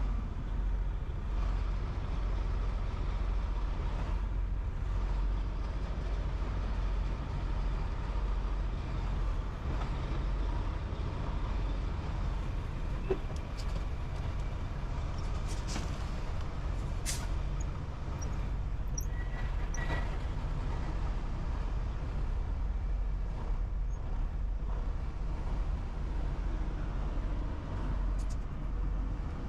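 Heavy truck engine running with a steady low rumble, with a couple of short hisses about halfway through.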